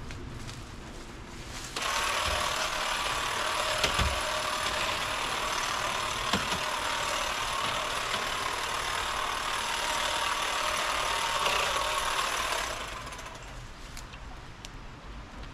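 Electric pole hedge trimmer running, its blades cutting through leafy shrub growth. It starts suddenly about two seconds in, runs steadily, and winds down near the end.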